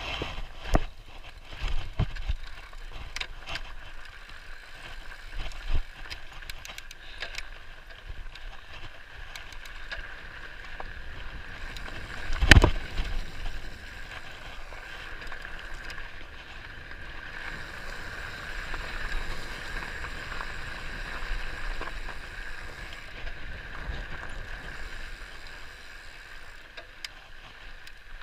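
Mountain bike rolling down rocky dirt singletrack: tyres rattling over loose stones, with sharp knocks and clatter from the bike hitting bumps, the loudest about twelve and a half seconds in, over a steady rushing hiss.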